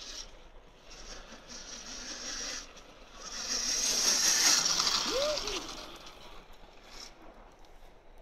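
Deller electric bike riding through packed snow, its tyres hissing and crunching. The sound swells as it passes close about three to six seconds in, with a brief rising-then-falling whine near the loudest point.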